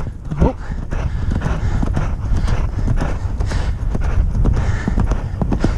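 Hoofbeats of a horse moving at pace over dirt, in a quick, uneven beat, with steady wind rumble on the microphone.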